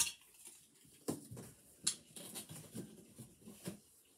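Christmas ornaments being handled and taken out of their box: soft rustling with a few small clicks and knocks, the sharpest about a second and two seconds in.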